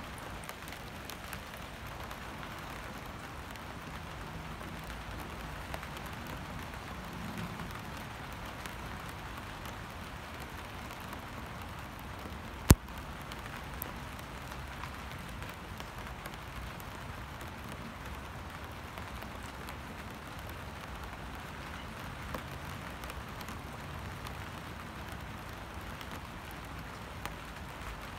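Rain falling steadily onto standing water, an even hiss of drops, with one sharp click about halfway through.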